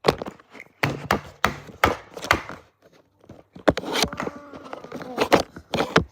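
Irregular run of sharp knocks and taps with some rubbing between them, from Play-Doh tools and tubs being handled and struck during play.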